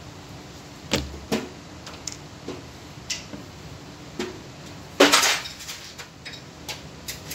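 Sharp metallic clicks and knocks from handling an orange steel carrying case for a PPR pipe welding machine, with a louder clatter of sheet metal about five seconds in as the case's lid is opened.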